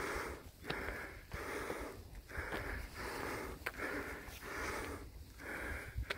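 A person breathing hard close to the microphone while climbing concrete steps, in and out in a steady rhythm of about one and a half breaths a second, with a few faint clicks.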